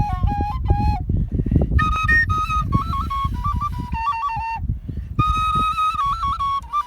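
Kaval, the Turkish end-blown shepherd's flute, playing an ornamented melody in short phrases, with breaks at about one and a half and about five seconds in. A heavy, uneven low rumble runs beneath it.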